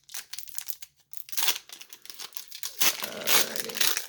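Foil trading-card booster pack wrapper crinkling and tearing in a run of short crackly bursts, with louder stretches about a second and a half in and near the end.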